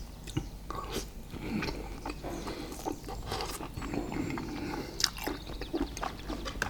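Close-miked eating: chewing and biting a meal of grilled steak and sticky rice, with irregular wet mouth clicks and smacks.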